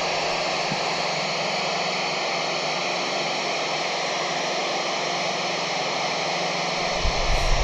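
Steady FM radio static: the hiss of a 2 m receiver with no voice coming through, between the astronaut's transmissions. A low rumble comes in near the end.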